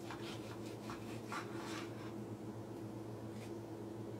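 Carving knife sawing through a smoked javelina hind quarter on a wooden cutting board: a run of short, soft slicing strokes over about the first two seconds, then it goes still.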